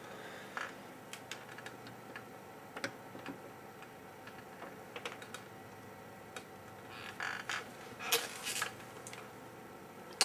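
Light scattered clicks and taps of a metal BGA reballing stencil and its frame being handled and seated on the jig over a GPU chip, with a few short scraping sounds about seven and eight seconds in.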